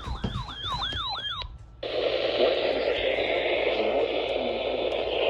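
A siren yelping in quick rising and falling sweeps, cutting off after about a second and a half. After a brief gap, a steady hiss of radio static starts and runs on.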